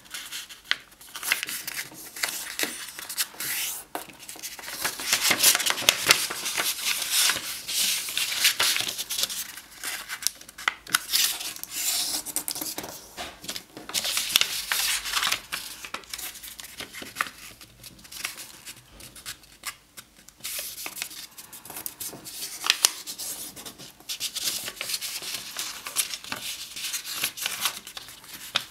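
A sheet of origami paper being folded by hand: irregular rustling and crinkling as it is lifted and turned, with fingers rubbing along the folds to press the creases flat.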